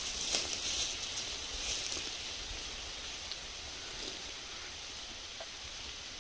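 Faint rustling of leaves and brush with a few light ticks, a little louder in the first two seconds, over a quiet forest background.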